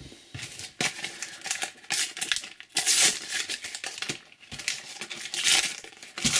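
Crinkling and rustling of a Panini FIFA 365 sticker packet being handled and torn open, in irregular crackly bursts, loudest about three seconds in and again two to three seconds later.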